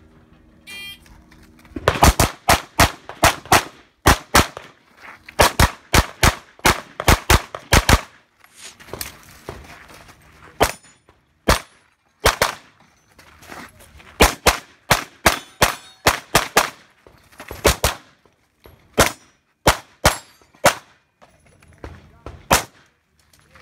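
A shot timer beeps about a second in. Then an Open-division race pistol fires a timed USPSA stage: rapid strings of shots with short pauses between them, the last shot about a second before the end.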